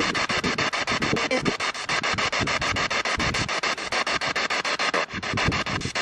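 P-SB7 spirit box sweeping through radio stations: a steady rasping hiss chopped into rapid, even pulses, many a second, dipping briefly near the end.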